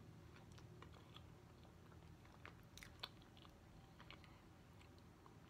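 Faint chewing of a soft pastry, with a few small wet mouth clicks in the middle.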